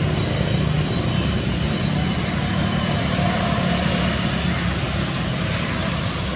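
Steady outdoor background noise: a continuous low rumble with an even hiss over it and no distinct events.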